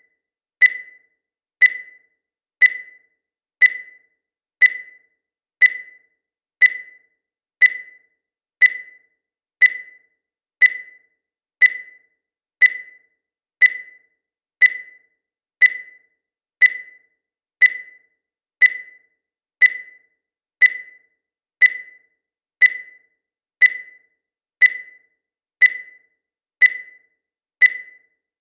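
Digital countdown timer beeping once every second, each beep a short high-pitched tone that fades quickly.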